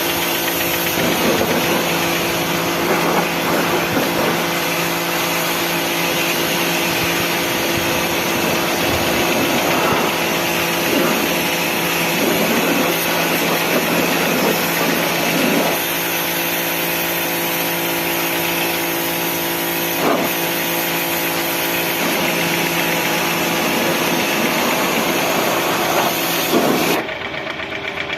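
A motor-driven machine running steadily, with a hum and a loud hiss over it. The hiss cuts off suddenly about a second before the end, and the hum changes.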